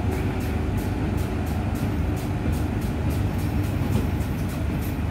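Diesel multiple unit train running with a steady low engine rumble as it pulls slowly out of the station. Music with a quick, even ticking beat plays over it.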